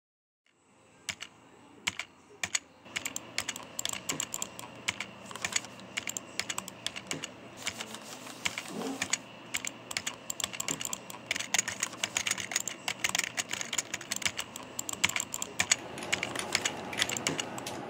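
Computer keyboard keys pressed rapidly and unevenly during game play: a few separate clicks at first, then a dense run of key presses from about three seconds in.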